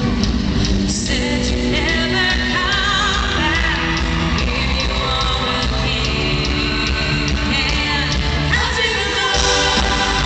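Live pop-rock band playing over a steady drum beat, with a group of women singing into microphones.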